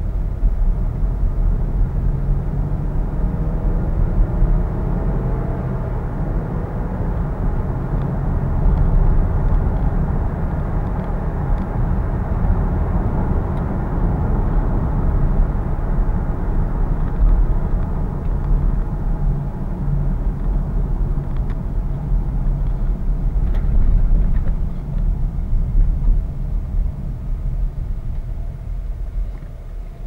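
Cabin noise inside a 2014 Jeep Grand Cherokee accelerating on the road: a steady low engine and tyre rumble, with faint rising engine tones as it picks up speed.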